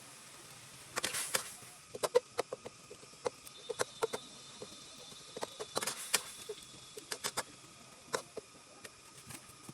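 Kitchenware clinking and knocking in an irregular string of sharp clicks, with two brief hissing bursts, about a second in and again about six seconds in.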